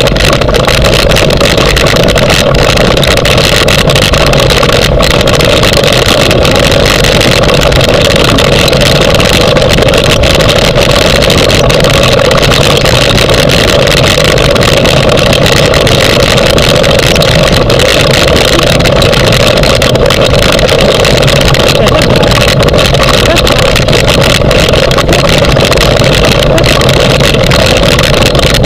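Dryland dog-sled training rig rolling over grass behind a running dog team: a loud, steady rumble and rattle from the wheels and frame, with many small clicks.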